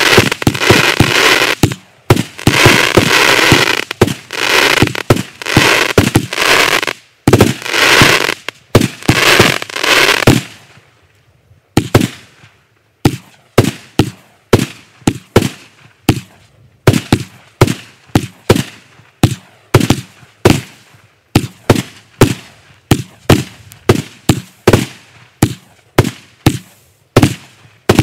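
Kimbolton Encore 100-shot firework cake firing. Its bursts give dense crackling for roughly the first ten seconds, then a steady run of separate sharp shots, about two a second.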